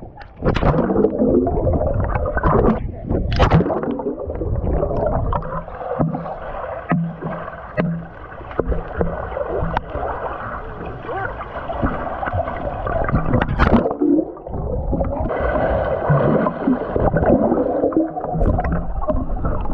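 Swimming-pool water gurgling and sloshing around a GoPro camera, heard muffled, with sharp splashes a few seconds in and again about two-thirds of the way through.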